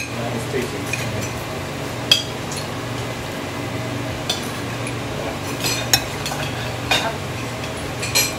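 Metal tongs and eating utensils clinking and scraping against a tabletop electric grill pan and dishes, in scattered sharp clicks a second or two apart, over a steady low hum.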